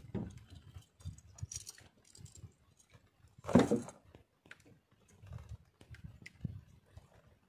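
Handline being hauled in hand over hand, with irregular rustles and soft knocks of line and hands at the boat's side while a fish pulls hard on the line. One short loud sound about three and a half seconds in stands out above the rest.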